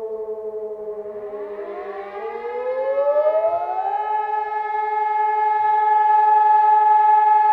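Civil defence sirens, an E57 motor siren and an SES 1200 electronic siren, sounding a test alarm together. One tone slides slowly down while another siren rises from a low pitch over about three seconds, then holds a steady, loud tone.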